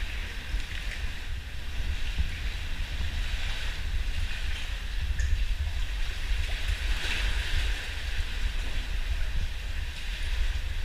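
Wind buffeting the microphone over the wash of sea water and small waves, a steady rushing noise that swells slightly now and then.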